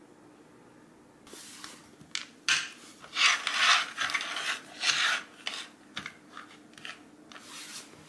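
Small plastic cups being shuffled by hand across a wooden floor, a string of short sliding scrapes that grows loudest in the middle and tapers off near the end.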